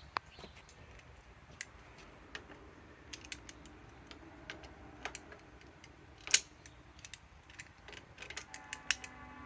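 Irregular sharp clicks and light metallic clatter of hand tools being handled on a nut, with one louder click about six seconds in.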